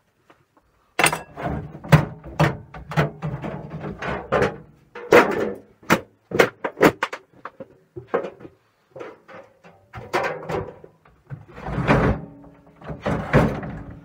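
Repeated knocks, bangs and rattling clatter of an old microwave oven's thin sheet-metal casing being pulled off and handled, starting about a second in.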